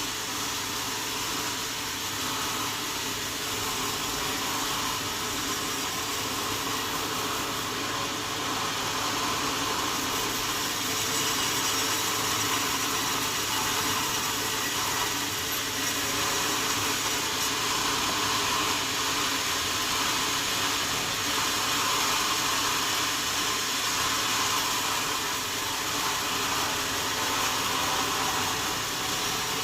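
Sawmill saw running through wadang wood: a steady, noisy whine with a faint machine hum beneath, growing slightly louder through the middle.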